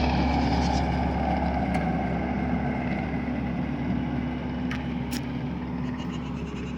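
A vehicle engine running steadily, growing slowly fainter, with two short sharp clicks about five seconds in.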